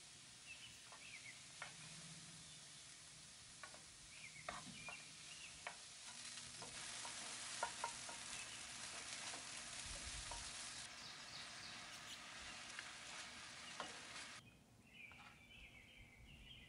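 Diced onions sizzling in oil in a nonstick frying pan as a wooden spoon stirs them, with light clicks and scrapes of the spoon against the pan. The sizzle grows louder about six seconds in and drops away near the end.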